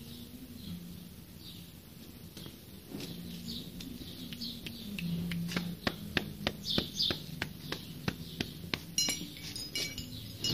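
A run of sharp clicks or taps, growing to about three a second in the second half, over faint high bird chirps and a low steady hum.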